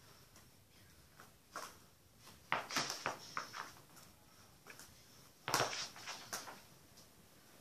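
A football being touched and dribbled with bare feet on a rug: irregular short thuds and slaps, a quick run of them around the middle and the loudest a little past halfway.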